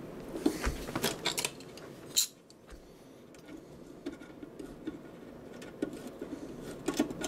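Light metallic clicks and clinks of small screws and hardware being handled on a metal amplifier cabinet, busiest in the first two seconds and ending in a sharp click about two seconds in, then only a few soft ticks.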